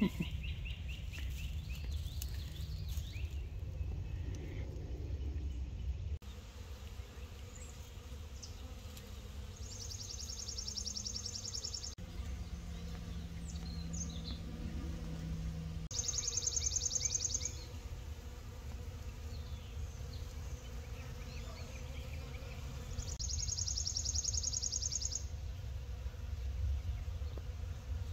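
Outdoor ambience: a high, rapid trill heard three times, a few seconds apart, over a steady low rumble, with a low steady buzz for a few seconds midway.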